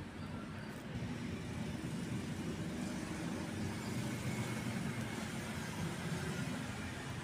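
A steady low rumble throughout, engine-like.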